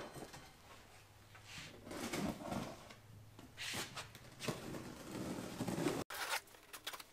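Cardboard shipping box being handled and its flaps opened: a few separate rustles and scrapes of cardboard and packing.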